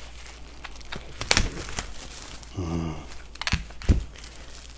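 Plastic crinkling in quick, scattered crackles as a plastic bag and the plastic film over a tray of raw chicken drumsticks are handled and pulled open, with a short hum from a man's voice about halfway through.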